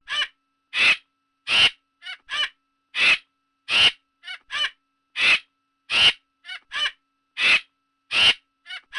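Recorded vulture call sound effect from the Animal 4D app: a steady series of harsh, crow-like caws, a little over one a second, with short quick double calls between some of them.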